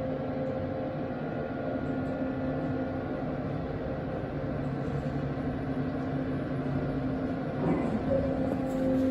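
Passenger elevator car travelling up one floor: a steady hum of the drive and the cab's ventilation fan, with a constant tone under it, getting a little louder near the end.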